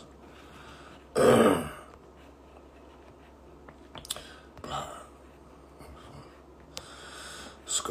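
A man clears his throat once, loudly and briefly, about a second in; after it only faint room tone with a few small clicks.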